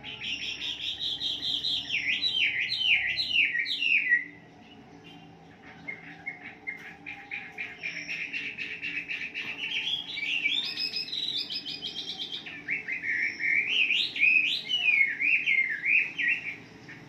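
Chinese hwamei singing long phrases of rapid warbling notes and strings of down-slurred whistles. The song breaks off about four seconds in and resumes a second and a half later.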